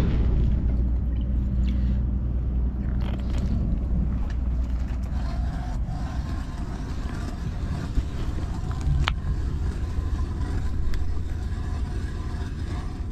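Steady low rumble, with a few faint clicks and scrapes from a plastic cup and a plastic tub of groundbait being handled at an ice-fishing hole.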